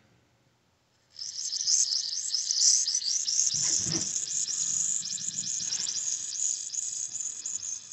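Pressurised water hissing and spitting from the threaded washer-hose coupling on a spigot valve, starting about a second in. The fitting is still leaking after being tightened as far as it will go.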